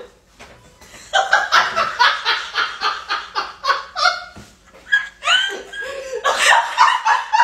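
A woman laughing hard in quick repeated bursts, starting about a second in, with a rising high laugh a little past the middle.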